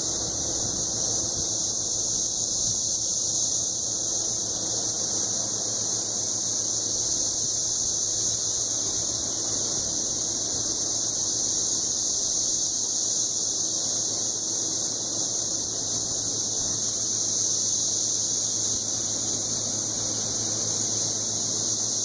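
Chorus of Cassin's 17-year periodical cicadas (Magicicada cassini), many males singing together in the trees: a steady, high-pitched shrill buzz.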